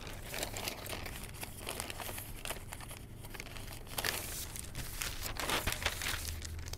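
Newspaper pages rustling and crinkling as they are leafed through and turned, with louder rustles about four seconds in and again near the end.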